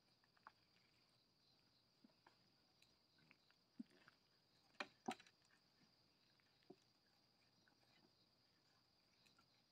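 Near silence: a faint steady high-pitched whine, with a few scattered small clicks and knocks from puppies moving about and pawing at things, the loudest a quick pair about halfway through.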